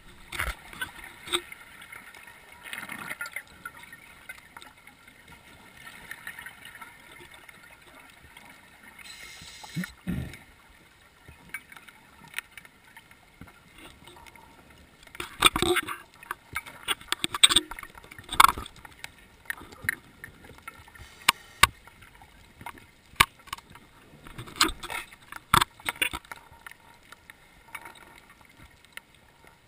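Underwater sound heard through a GoPro's waterproof housing: a low water hiss broken by irregular bursts of divers' exhaled bubbles and scattered clicks, busiest around the middle and again about three-quarters of the way through.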